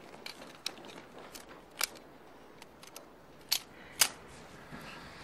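Pistol misfiring: several sharp metallic clicks as the trigger is pulled and no shot goes off, the loudest near two and four seconds in.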